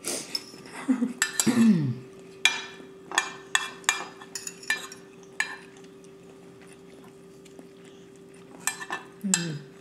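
Spoon and fork clinking and scraping against ceramic bowls while people eat: a quick run of clinks over the first five seconds, a quiet stretch, then a few more near the end.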